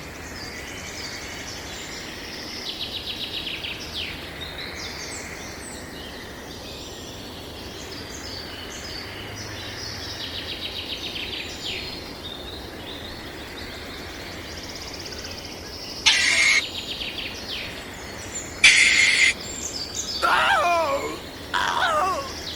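Birds chirping and calling over a steady outdoor background, with two short loud calls about 16 and 19 seconds in and more calls near the end.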